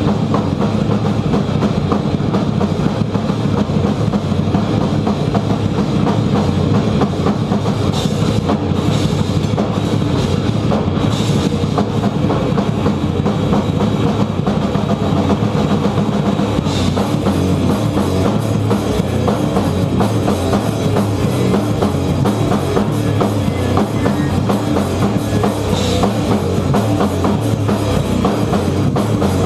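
Loud rock music with a full drum kit, bass drum included, playing without a break.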